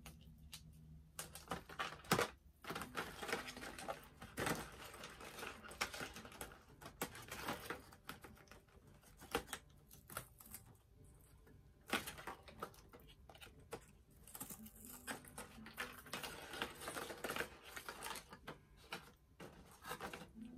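Small hard plastic doll accessories and their packaging being handled: irregular clicks, taps and rustles.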